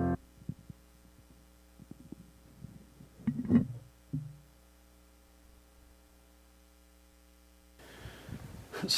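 Keyboard music cuts off at the start, leaving a faint steady hum. Over the hum come a few soft handling thumps from a handheld microphone and a brief louder rustle about three and a half seconds in, with one more short noise just after.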